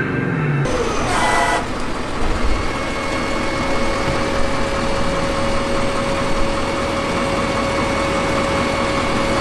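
A large motor vehicle's engine running steadily after music cuts off about half a second in, with a brief tone about a second in.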